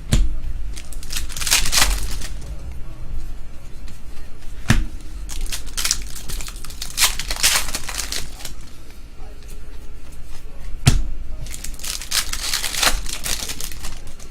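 Trading card pack wrappers crinkling and tearing as hobby packs are opened, in three rustling spells. A few sharp taps or clicks fall between them.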